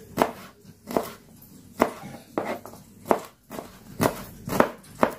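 Kitchen knife slicing shallots on a plastic cutting board: a series of sharp knocks as the blade meets the board, about one to two a second, unevenly spaced.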